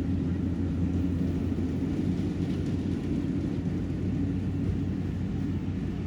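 Yanmar YH700 combine harvester's diesel engine running steadily with an even, low drone.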